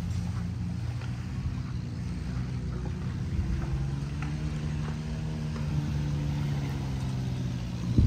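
A motor engine running steadily with a low hum, its pitch shifting slightly partway through.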